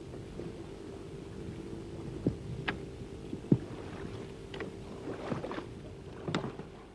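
A speared barracuda thrashing at the surface beside a small boat's hull as the speargun line is hauled in, giving a handful of sharp splashes and knocks, the loudest about three and a half seconds in. Under it runs the steady hum of the boat's idling engine.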